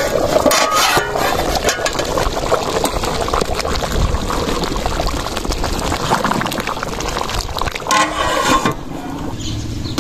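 Rice in tomato chicken stock boiling hard in a large pot, a steady bubbling, while a ladle stirs it. There are brief louder sounds about half a second in and again about eight seconds in.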